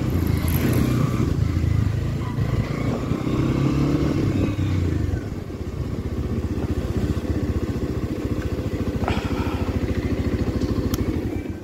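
Motorcycle engine running as the bike is ridden. The revs ease off about five seconds in, and the engine then runs with an even low-rev beat. A single sharp click comes about nine seconds in.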